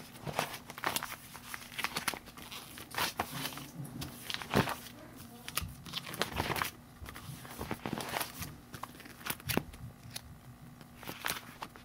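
Plastic sleeves and signed photos being handled and flipped through, crinkling and rustling with many irregular clicks.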